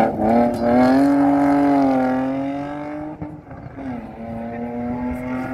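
Rally car engine revving hard as it accelerates out of a gravel corner and away. The pitch climbs and holds high, drops about three and a half seconds in at an upshift, then climbs again as the sound fades with distance.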